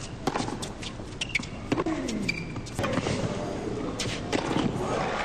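Tennis rally: sharp pops of the racket striking the ball, with a player letting out a falling grunt on his shots. Crowd applause starts to build near the end as the point is won.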